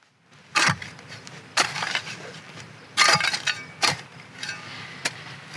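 A small hand shovel chopping and scraping into dry, hard ground while clearing a spot for a fire pit: about five sharp strikes roughly a second apart, with scraping and crunching of dirt between them.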